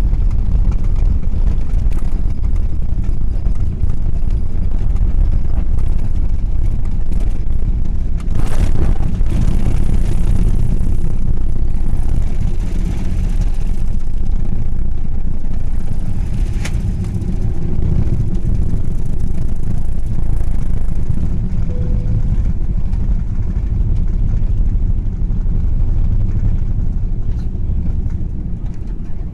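Airbus A380 heard from inside the passenger cabin: a loud, steady low rumble of jet engines and airframe during takeoff. There is a brief louder swell about eight seconds in and a single click a little later.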